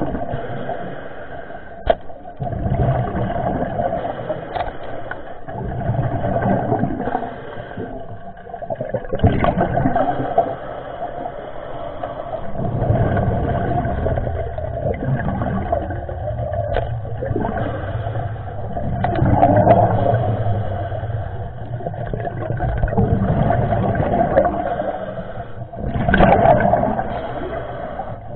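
Sea water rushing and sloshing around a diver's camera, swelling and easing every few seconds, with a few brief knocks.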